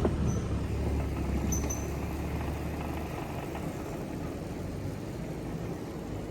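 Low, steady rumble of a vehicle running, easing off after about three seconds.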